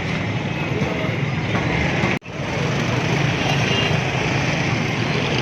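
Busy street traffic noise: vehicles passing and a general urban din. It cuts out abruptly for a moment about two seconds in.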